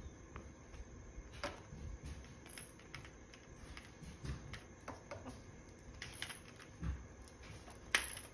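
Green-winged macaw gnawing at a hanging wooden chew stick: sparse, irregular clicks and cracks of beak on wood, with the loudest crack near the end.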